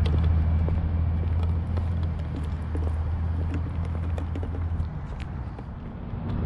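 Car on the road with a steady low engine and road drone and tyre noise, which eases off about five seconds in.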